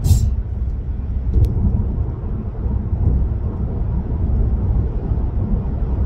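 Steady low rumble of road and engine noise inside a moving car's cabin, with a faint click about a second and a half in.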